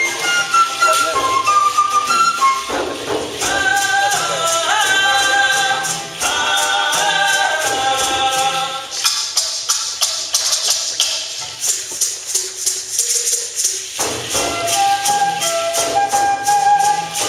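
Folkloric dance music: a wind melody over steadily shaken rattles and a low beat. From about nine seconds in the melody stops for several seconds and the rattles carry on alone, then the melody comes back.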